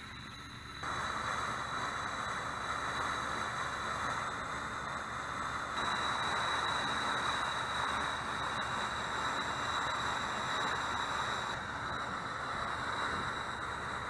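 Water hissing and sizzling around a thin jewelry wire heated by a 12-volt battery. It starts suddenly about a second in, as the wire is connected, and holds steady.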